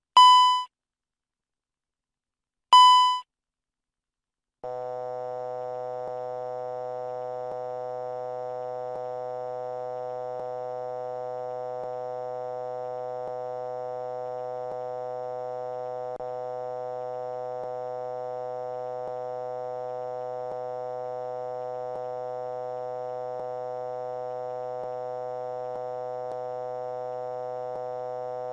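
Two single chimes of the Airbus A330 master-caution alert, each short and fading, about three seconds apart. From about five seconds in comes a continuous, steady synthetic chord tone: the C-chord altitude alert, sounding as the aircraft climbs away from its selected altitude.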